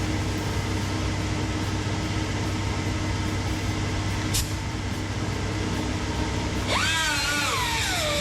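A steady mechanical drone with a low hum and a high whine, with a brief high squeak about halfway. Near the end, electric guitar music with bending notes comes in over it.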